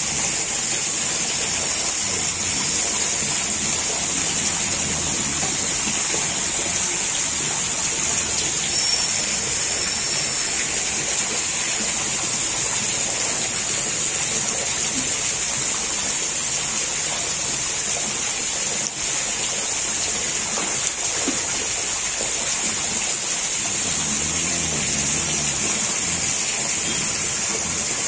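Steady rushing and splashing of water in a biofloc fish tank crowded with rohu fish.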